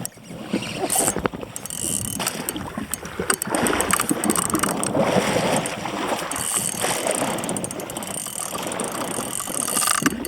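Fishing reel clicking and grinding as a big, hooked fish is fought against the drag, over steady water and wind noise.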